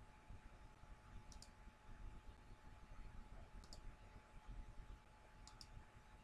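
Computer mouse clicking three times, each a quick double click, over near-silent room tone with a faint steady hum.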